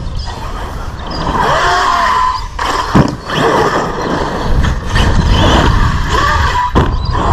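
Brushless electric motor of an Arrma RC car whining up and down as the throttle is punched and eased, over the rush of tyres on loose dirt. A sharp thud about three seconds in, and a smaller one near the end, as it lands jumps.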